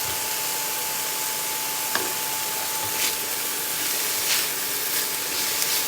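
Chopped onions, peppers and mushrooms sizzling steadily in oil in a frying pan on an induction cooktop, with a steady faint tone throughout and a single sharp click about two seconds in.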